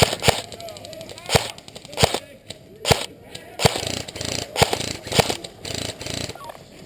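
Airsoft guns firing single shots: about eight sharp pops at uneven intervals, most of them in the first five seconds.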